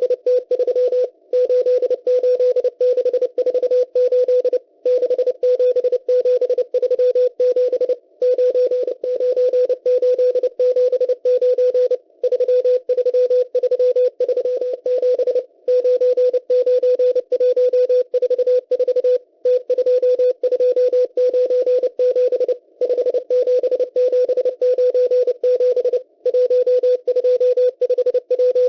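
M12 numbers station Morse code received on shortwave: a steady beep near 500 Hz keyed on and off rapidly, sending numbers in groups about three and a half seconds long with a short pause between each, over narrow-band receiver hiss.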